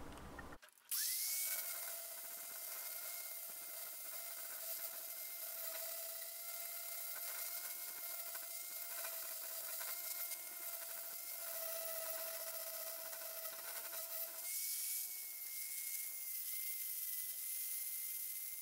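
Electric angle grinder running with its disc against the steel of a splitting wedge, grinding the mushroomed top off the striking end: a steady motor whine over a grinding hiss. It starts about a second in, and its pitch rises briefly about two-thirds of the way through.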